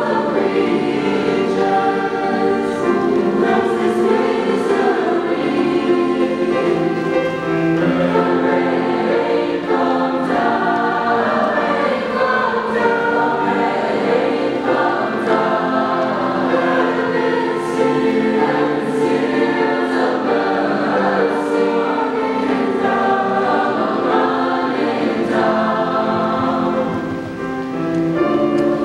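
Mixed choir of young men and women singing in multi-part harmony, holding sustained chords while the parts move. The sound dips briefly a little before the end, then swells again.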